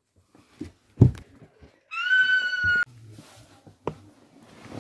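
A thump from the phone being handled about a second in, then a high-pitched squeal held at one pitch for about a second, with light rustling and knocks of handling around it.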